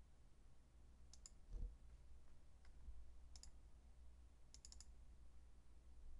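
Faint computer clicking: quick double clicks about a second in and three and a half seconds in, then a triple near five seconds, as the screen annotation pen fails to respond and is clicked again. A soft thump about a second and a half in, over a low steady hum.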